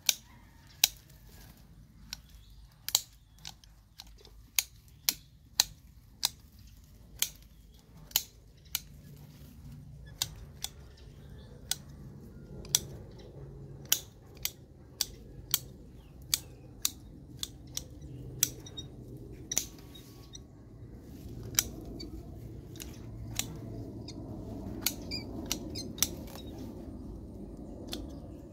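Bonsai pruning shears snipping the branches of a water jasmine (Wrightia religiosa) tree: a long irregular run of sharp clicks, about one to two a second.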